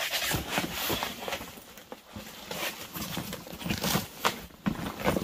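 Items being handled and rummaged through: irregular rustling with scattered light knocks and clicks.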